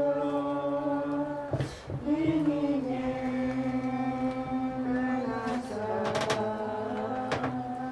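Unaccompanied male voice chanting a Christian hymn in praise of Jesus's name, in long held notes that slide slowly between pitches, with short breaths between phrases.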